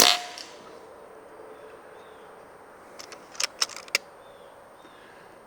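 A .177 Beeman Commodore pellet rifle firing a single shot, a sharp report that dies away within a fraction of a second. About three seconds later comes a quick cluster of four or five metallic clicks as the rifle's action is worked to load the next pellet from the magazine.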